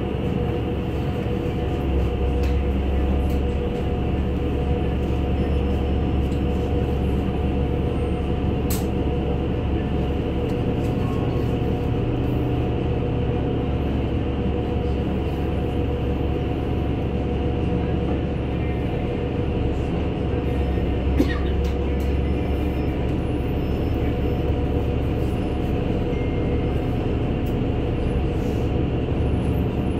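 NefAZ-5299 city bus under way, heard from inside the cabin: a steady low engine and road rumble with a steady whine over it, light rattles, and one sharp click about 21 seconds in.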